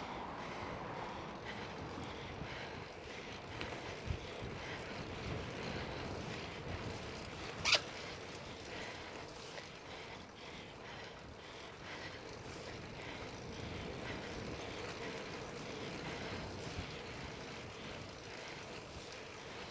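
Riding noise from a fixed-gear bicycle: a steady rushing of tyres on pavement and wind on the microphone, under a faint steady hum. A single sharp click comes about eight seconds in.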